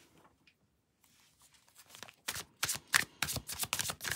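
Tarot cards being handled and dealt: near quiet at first, then from about two seconds in a quick, irregular run of sharp card snaps and clicks as cards are slid off the deck and laid down.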